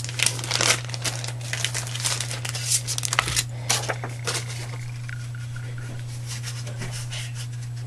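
Rustling and light clicks and taps of paper and plastic cutting mats being handled, busiest in the first half, then quieter, over a steady low hum.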